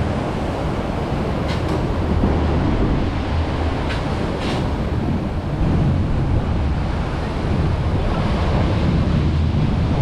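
Steady rush of churning water around a river rapids raft, over a low rumble of wind on the microphone, with a few faint clicks about a second and a half in and again around four seconds.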